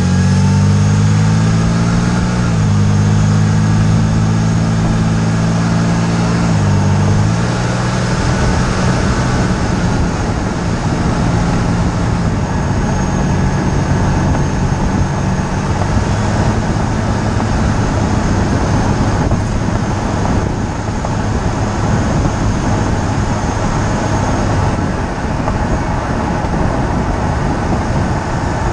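BMW E46 325xi's inline-six engine running while the car drives along, heard from down by a wheel over steady tyre and road noise. The engine note drops twice within the first seven seconds, then holds steady.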